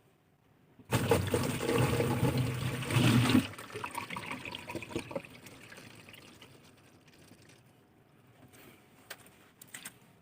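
Water gushing out suddenly about a second in for a couple of seconds, then trickling and dying away, with a few light clicks near the end.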